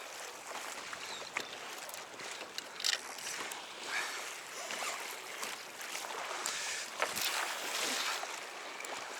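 Choppy sea water lapping and splashing around a kayak, with a few brief sharper splashes or knocks.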